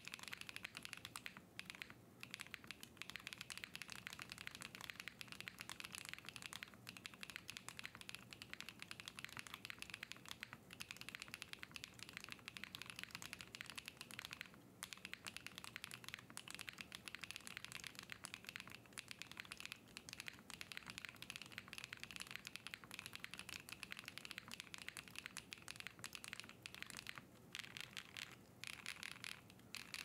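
Fast continuous typing on a Cub65 mechanical keyboard with stock London Fog switches, a POM plate with plate foam and SK Lylia doubleshot keycaps: a dense run of key clacks broken by a few short pauses.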